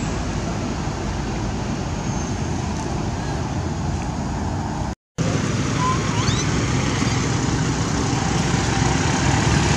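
Steady, loud rumbling outdoor background noise with a low hum, cutting out for a moment about halfway through. After the gap a few faint short high chirps rise and fall above it.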